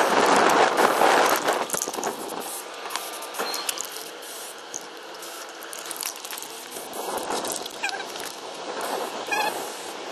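Aerosol spray-paint can hissing in bursts as paint is sprayed onto a wall, loudest in the first second and a half.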